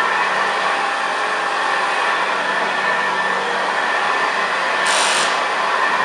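1971 Hoover Senior 6525C upright vacuum cleaner running steadily on carpet, a steady hum over a broad rush of air, with a brief sharper hiss about five seconds in.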